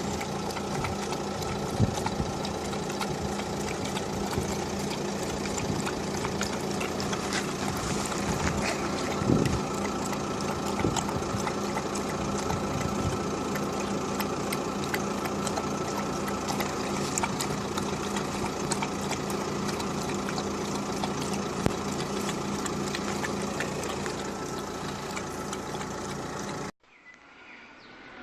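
A steady mechanical hum, like a motor running, with several constant tones and scattered light clicks; it cuts off abruptly near the end.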